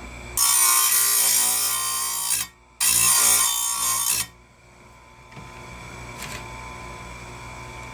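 Electric chainsaw sharpener's grinding wheel grinding chain cutters: two loud grinding passes of about two seconds and a second and a half, separated by a short break. After them only a quieter steady hum remains.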